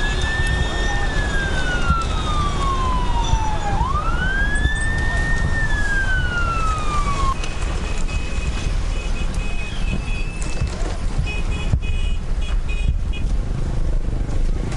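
Emergency vehicle siren wailing: each cycle rises quickly, holds, then falls slowly, twice, and it stops about seven seconds in. A steady low rumbling noise runs underneath, with a few short high beeps near the end.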